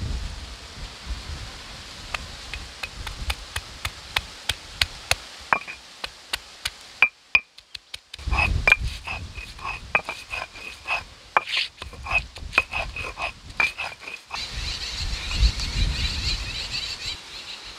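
Fresh ginger being crushed on a stone grinding slab with a stone roller (sil-batta). There are quick sharp stone-on-stone knocks, about three a second, and then a rough grinding rumble as the roller is pressed and worked over the ginger, with more knocks mixed in.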